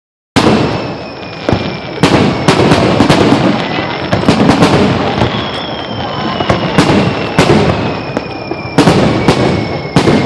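Rapid barrage of aerial firework shells bursting during a fireworks finale: sharp booms about two a second, one after another, over a continuous crackling rumble.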